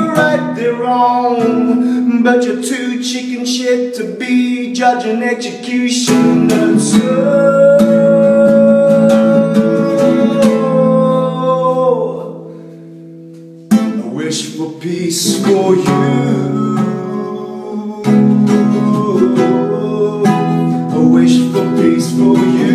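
A man singing to his own strummed nylon-string classical guitar. About seven seconds in he holds one long sung note that trails off into a brief lull, then a sharp strum brings the song back in.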